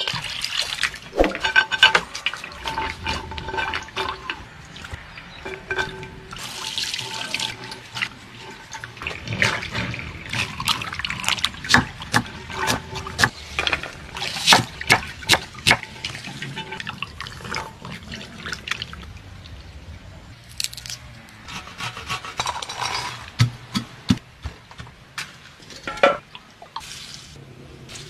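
Hand food preparation: a long run of sharp knocks and clinks, densest around the middle, from a knife chopping on a wooden board and from bowls and pans being handled.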